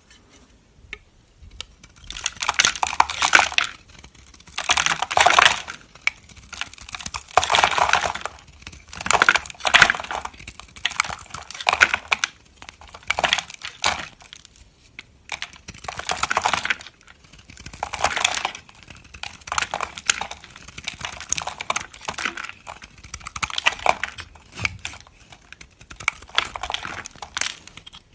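A knife cutting through a bar of soap in repeated strokes: crisp crackling cuts about a second long, roughly one every two seconds.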